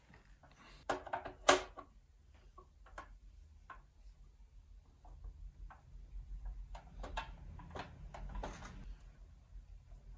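A screwdriver working screws out of a turntable's underside: scattered small clicks and ticks, with two sharp clicks about a second and a second and a half in, and a busier stretch of scraping and ticking in the second half.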